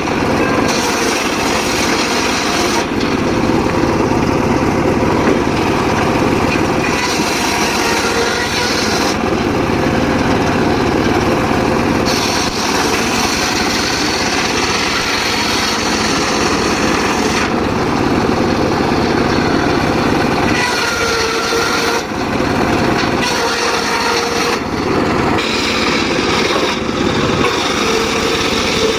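Homemade circular saw running and cutting mahogany, a steady machine drone with the blade's cutting noise growing and easing every few seconds as the wood is fed through.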